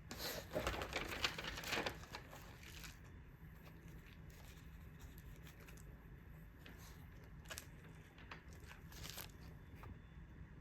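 Packaging crinkling and rustling as it is handled, busiest in the first two seconds, then a few faint scattered rustles and taps.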